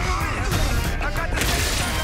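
Dramatic TV fight-scene soundtrack: background music with mixed-in sound effects, including a loud noisy crash-like burst about three quarters of the way through.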